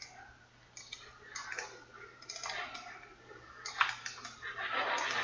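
Computer mouse and keyboard clicks: a handful of separate sharp clicks spaced about a second apart, then a denser run of clicking near the end.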